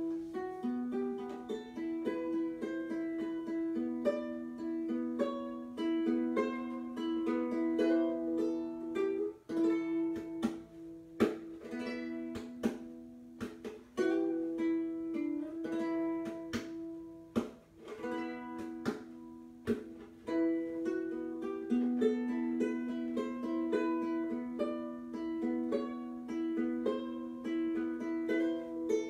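Instrumental music on a plucked string instrument: single notes picked one after another in a flowing, repeating melody over held lower notes.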